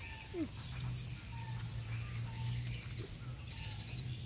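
Small animal calls: a short falling squeak about half a second in, then several brief chirps spread through the rest, over a low steady hum.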